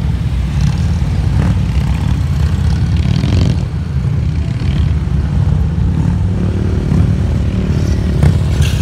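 Heavy touring motorcycles running at low revs as they manoeuvre slowly, a steady low engine sound from several bikes at once, with a few brief clatters.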